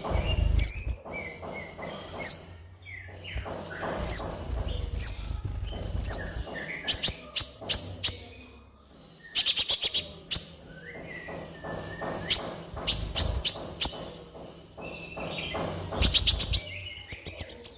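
A sunbird (kolibri ninja) singing: sharp, high chips that drop in pitch, about one a second, broken several times by fast, stuttering high trills.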